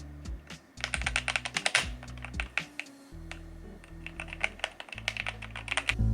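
Fast typing on a DrunkDeer A75 magnetic-switch keyboard: quick runs of key clacks with a short pause about halfway through, over background music with a steady low bass.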